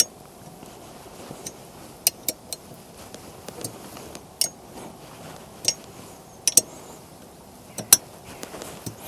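Irregular sharp metallic clicks and clinks, about ten of them, some in quick pairs: hand tools working on the bolts of a motorcycle rear rack.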